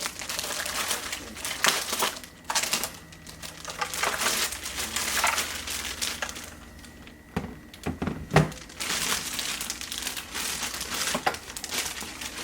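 Keyboard packaging crinkling and rustling as it is handled, in irregular bursts, with one sharp knock about two-thirds of the way through.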